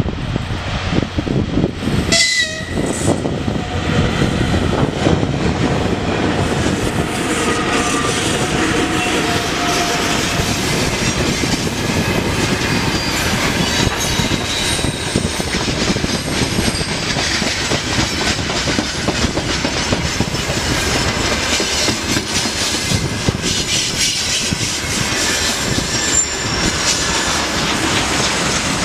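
VL11 electric locomotive passing close about two seconds in, then a loaded freight train's wagons rolling past steadily, wheels rumbling and clacking over the rail, with short thin squealing tones now and then.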